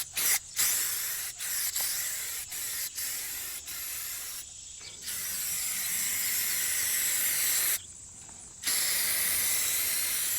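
Spray paint hissing out of a nozzle in bursts: short on-and-off spurts over the first few seconds, then longer runs with a brief stop a little before the end.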